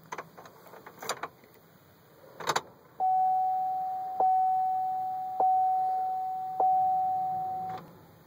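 Keys clicking and rattling, then a Chevrolet Trailblazer's dashboard warning chime dinging four times, about 1.2 seconds apart, each ding fading before the next. No starter or engine is heard, which fits a truck that won't start.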